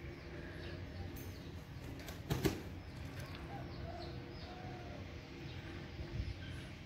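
Backyard birds calling faintly, with a short louder rustle like flapping wings about two and a half seconds in and a smaller one near the end.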